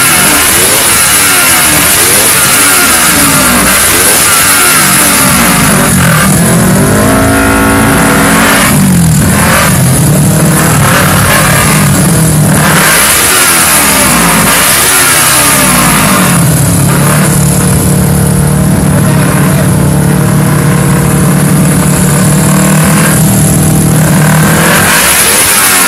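250cc sportbike engines being revved hard at a drag-race start line. The revs rise and fall in repeated quick blips, then are held steady at high revs for several seconds near the end.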